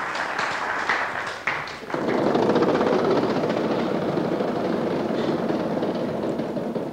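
Large game-show prize wheel spinning, its pointer clicking rapidly against the ring of pegs in a dense, steady rattle that starts abruptly about two seconds in.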